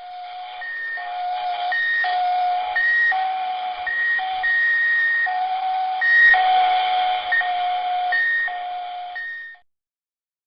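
Electronic beeping tones, short held notes switching between a lower and a higher pitch in an uneven pattern over a hiss, that cut off suddenly after about nine and a half seconds.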